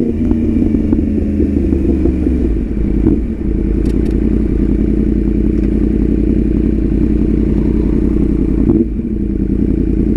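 2018 Yamaha R1's crossplane inline-four engine running steadily under light throttle while the bike is ridden in city traffic, heard from on the bike. The engine note dips briefly about nine seconds in.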